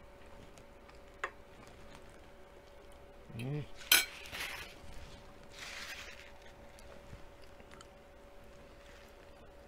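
A metal fork set down on a ceramic plate with one sharp, ringing clink about four seconds in, just after a brief hum from the eater. Softer mouth and chewing noises follow.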